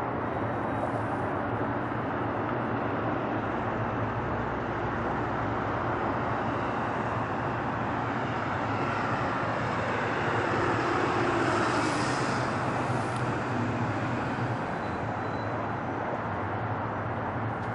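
Boeing 767 on final approach, its twin jet engines making a steady broad roar. The roar swells to its loudest a little past the middle, then eases as the airliner draws away.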